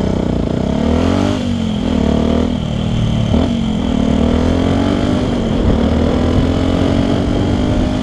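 Yamaha WR125X's single-cylinder 125 cc four-stroke engine through a LeoVince LV One aftermarket exhaust, with its dB-killer fitted, accelerating under way. The pitch climbs and drops back sharply about three times in the first few seconds as it shifts up through the gears, then holds steadier and slowly rises.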